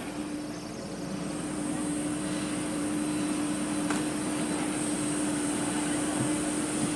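Jet airliner's engine running on the apron: a steady high whine over a low hum and rushing noise.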